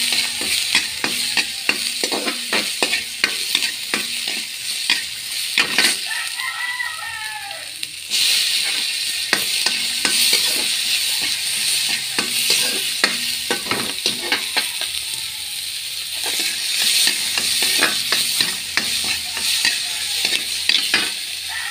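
Chopped garlic, shallots and tomato sizzling as they sauté in a pan, with a metal spatula repeatedly scraping and clicking against the pan as it stirs.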